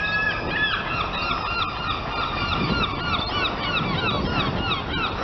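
Level crossing warning alarms sounding: several warbling electronic tones, each rising and falling a few times a second, overlapping out of step with one another, the warning that a train is approaching the crossing.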